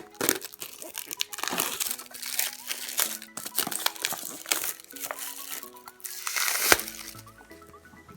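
Plastic wrapping crinkling as it is handled and pulled off a product box, in repeated rustles with the loudest burst near the end. Electronic background music plays underneath.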